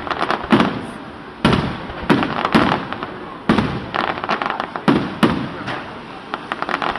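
Aerial firework shells bursting in a rapid barrage: about eight loud booms in seven seconds, each ringing out, with a dense crackling of stars between them.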